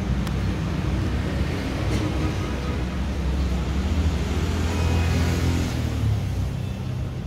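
Road traffic: a vehicle engine rumbles past close by over a steady wash of street noise, getting louder about four to six seconds in.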